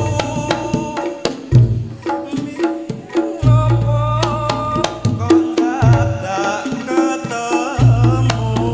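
Reog Ponorogo gamelan playing: a large kendang drum struck by hand in fast, dense patterns, with hanging gongs struck with padded mallets giving a deep, sustained boom every second or two, and a wavering high melody line over them.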